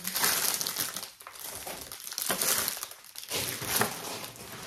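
Plastic food packaging and shopping bags crinkling and rustling as groceries are handled, in several irregular bursts.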